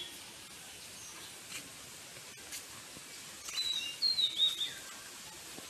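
Bird chirping: a short run of quick, high chirps about three and a half seconds in, over steady background hiss.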